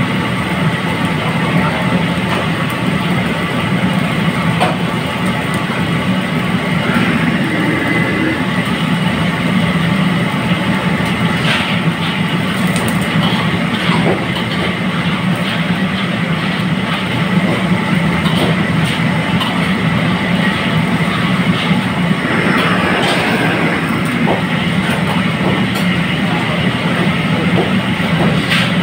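Commercial wok range's gas burner and kitchen exhaust running with a steady low rumble, while garlic sizzles in hot oil in the wok. A few metal clinks from a ladle against the wok.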